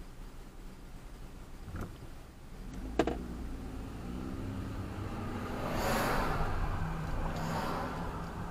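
Car engine and road noise swelling and passing, after a sharp knock about three seconds in.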